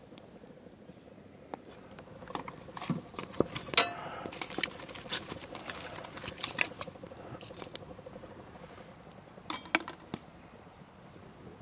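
Wood fire crackling and snapping under a cooking pot, with irregular sharp clicks and small knocks, busiest in the middle and with a short cluster near the end.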